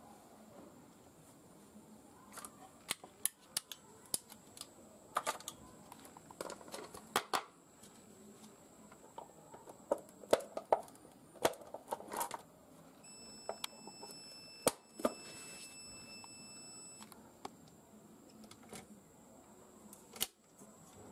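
Fujikura 22S fibre-optic fusion splicer being worked by hand: sharp clicks and snaps of its lid and fibre clamps as the fibre is loaded and handled. A faint steady high tone sounds for about four seconds midway.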